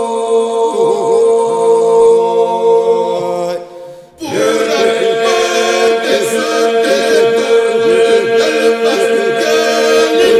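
Albanian Lab iso-polyphonic song sung unaccompanied by a men's group: a steady held drone (the iso) under lead voices that bend and ornament above it. The singing fades and breaks off briefly about four seconds in, then resumes over the drone.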